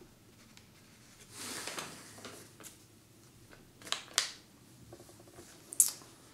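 A sheet of paper rustling and crinkling as it is unfolded and handled, with a few sharp crackles, the loudest near the end.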